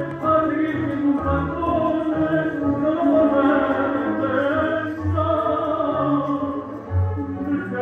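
Tango music playing for the dancers: a sustained melody line over bass notes.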